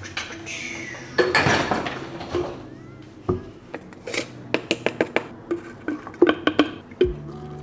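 Dishes and cutlery clattering as a dishwasher rack is handled, then a run of sharp clicks and taps as a powder canister is opened and a scoop knocks against a shaker bottle.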